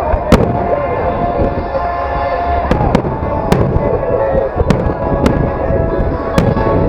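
Fireworks shells bursting overhead: about seven sharp bangs at uneven intervals, the loudest just after the start, over a continuous rumble of the display.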